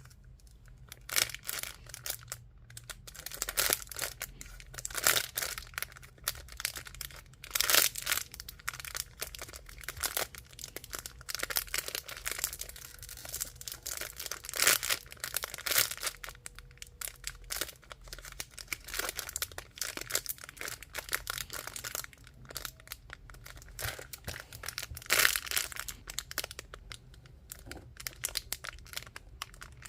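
Packaging being crinkled and torn open by hand, in irregular crackling bursts that come and go throughout.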